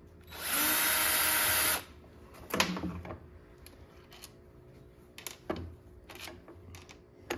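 DeWalt drill running steadily for about a second and a half, spinning out a fillister-head screw, then several short, sharp clinks and knocks of metal being handled.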